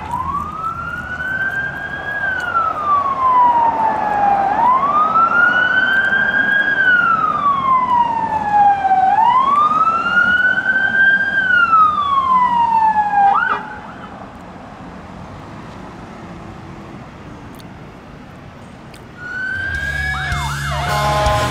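Police car siren on the wail tone, rising and falling slowly in three long sweeps, then cutting off suddenly and leaving quieter traffic noise. Near the end a louder burst of fast-changing tones comes in.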